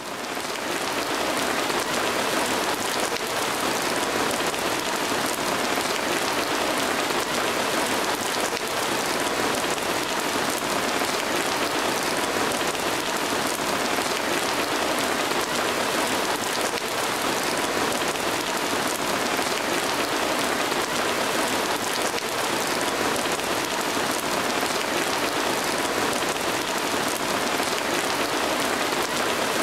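Steady heavy rain, a dense even patter of drops on a surface, swelling up from silence in the first second and then holding constant.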